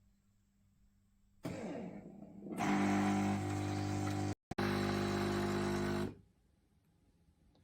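Bean-to-cup coffee machine running: a steady mechanical hum that starts abruptly about a second and a half in and stops abruptly about six seconds in, with a brief cut-out partway through.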